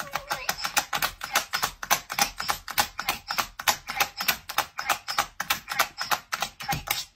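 A dog pressing the same talking button on its soundboard over and over: a fast, even run of plastic clicks, about five a second. Each press sets off the button's recorded word 'treat', which is cut short by the next press.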